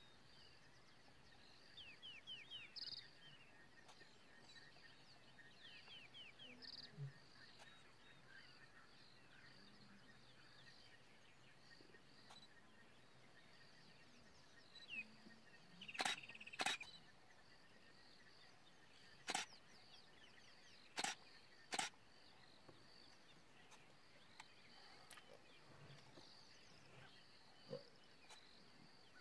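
Quiet bush ambience with birds chirping and a steady high insect drone, broken in the second half by about five sharp clicks of a DSLR camera shutter.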